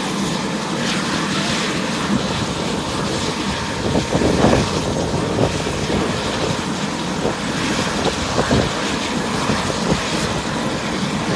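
Medical helicopter running on the ground before lift-off, its turbine engine and rotor making a loud, steady noise.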